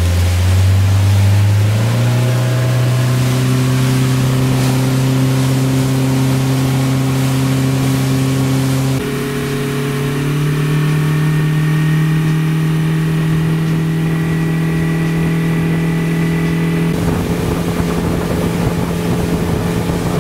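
Honda 90 hp four-stroke outboard motor opened up under throttle: its steady hum rises in pitch about two seconds in, steps higher again around the middle, and holds there at speed.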